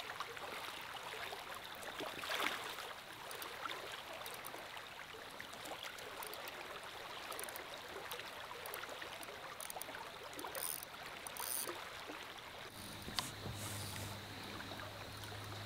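River water rushing steadily over the riverbed, with a few brief splashy knocks; a low steady hum comes in near the end.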